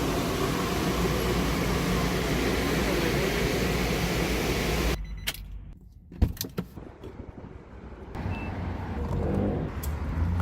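A car running with a steady low hum and wind or road noise, which cuts off suddenly about halfway through. A few sharp clicks follow, one of them loud, and a low hum rises again near the end.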